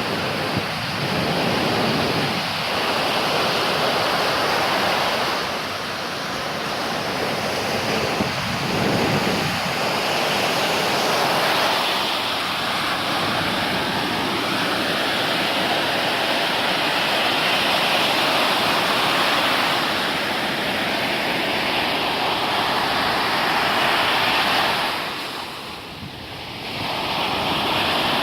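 Storm surf breaking continuously on a sandy beach, a dense unbroken wash of waves, with wind on the microphone. The sound eases for a moment near the end, then returns.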